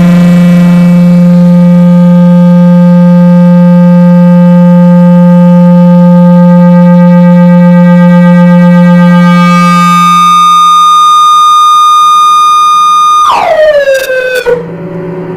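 Loud electronic drone from a tabletop synthesizer setup. A low buzzy tone rich in overtones holds steadily for about ten seconds, then gives way to a higher steady tone. Near the end the pitch swoops sharply downward, and the sound drops to a quieter, rougher drone.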